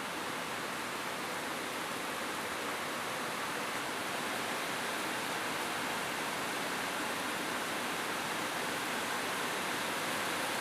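Steady rain falling on a roof, heard as an even, unbroken hiss.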